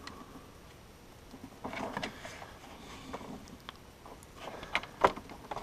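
An Ethernet cable's threaded connector and its cable being handled and fitted together: soft rubbing and rustling with a few small clicks, the sharpest about five seconds in.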